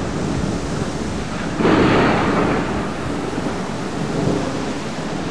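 Thunderstorm: steady heavy rain with thunder, and a sudden louder thunderclap about a second and a half in that rolls away over the following second.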